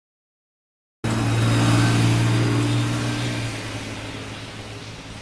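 A motor vehicle's engine running, with a steady low hum over road or engine noise. It cuts in suddenly about a second in and fades over the last two seconds.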